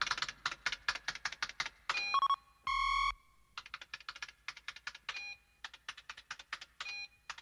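Cartoon sound effect of rapid typing on a laptop keyboard, the keystrokes clicking fast and unevenly, many with a small electronic blip. A single short electronic beep sounds a little under three seconds in.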